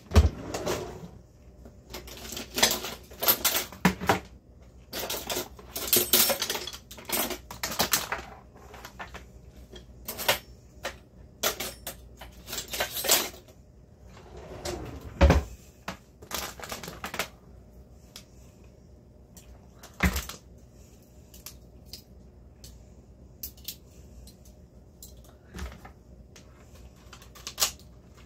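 Kitchen utensils clattering and rattling as they are rummaged through, handled and set down on a counter. The sound is thickest over the first half, with a heavier knock about halfway and a sharp click around twenty seconds in. After that there are only occasional light taps.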